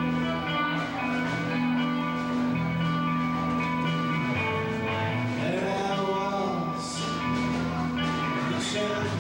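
Live rock band playing: electric guitars, bass and a drum kit over sustained held chords, with two cymbal crashes in the second half.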